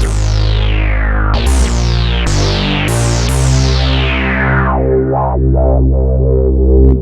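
Arturia AstroLab playing a Jupiter-8-style analog synth patch: sustained chords over a deep bass. Several chords are struck in the first half, each bright at the attack and closing down as the filter sweeps. Wavering sweeps follow near the end, and the sound stops abruptly at the very end.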